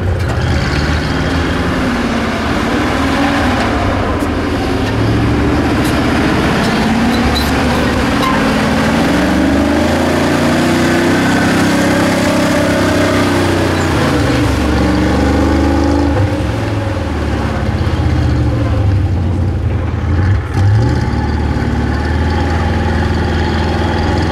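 ZIL-131 6x6 truck's engine revving, its pitch rising and falling over several seconds at a time, highest in the middle stretch.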